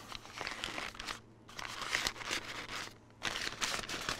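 Greasy butcher paper rustling and crinkling as it is peeled back by hand from a smoked brisket, in irregular bursts with two short pauses.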